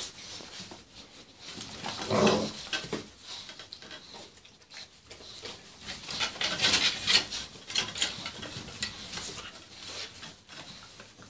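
Young puppies play-fighting on straw: scuffling and rustling straw with scratchy clicks, and a short vocal sound from a puppy about two seconds in.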